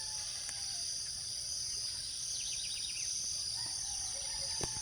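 Dawn insect chorus trilling steadily and high, with scattered bird calls: a quick run of short falling chirps about halfway through and a few faint whistled notes. A single click sounds just before the end.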